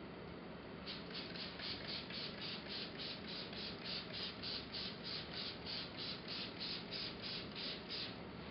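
Hand spray bottle misting water onto firebrick surfaces to wet them before mortaring: repeated quick trigger squeezes, about three hissing spurts a second, pausing briefly near the start.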